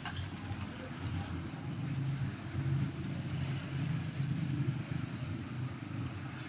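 Steady low mechanical rumble with a hum, overlaid by faint light ticks.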